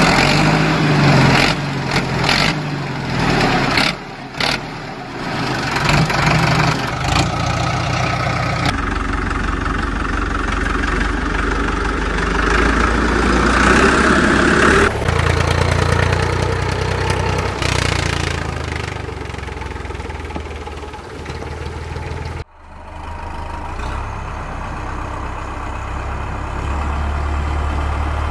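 Engine running with a steady low rumble, changing abruptly three times as the audio cuts.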